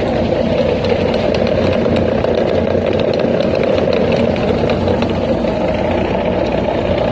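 Hongyan Genlyon heavy truck running, with a steady hum from its hub-reduction wheel-end gearing. This abnormal noise persists after three new wheel-ends and a new sun gear were fitted, and its cause has not been found.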